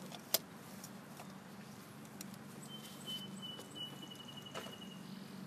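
Faint clicks of hand and tool work at the oil filter under the hood, with one sharp click about a third of a second in. A thin high steady tone sounds for about two seconds past the middle.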